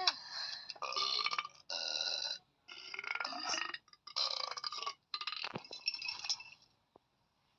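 A run of about six short, high-pitched cartoon burps in quick succession, each under a second long.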